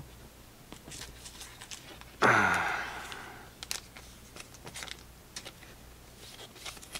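Light clicks and scrapes of cardboard trading cards being handled and shuffled by hand, with one short falling vocal sound, like a sigh, about two seconds in, the loudest thing.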